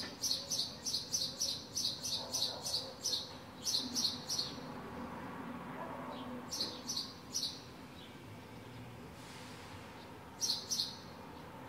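House sparrow chirping: a quick run of short repeated chirps, about three a second, for the first four seconds or so, then a shorter run of four a couple of seconds later and two more near the end.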